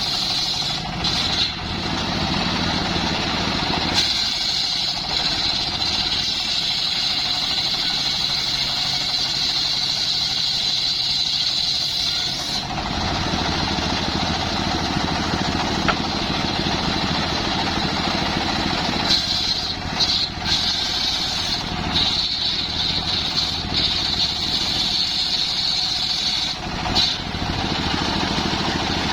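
Engine-driven wood saw running continuously, its tone shifting a few times.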